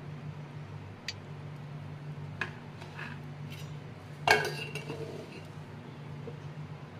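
Steel spoon and stainless-steel plates and bowl clinking as sandwich filling is spread, with a few light clicks and one louder metallic clank about four seconds in that rings briefly. A low steady hum runs underneath.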